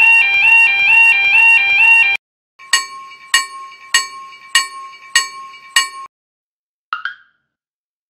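Level crossing warning alarm sound effects: a two-tone electronic warble alternating about twice a second that stops about two seconds in, then a crossing bell ringing six times, about 0.6 s apart. A brief chirp follows near seven seconds.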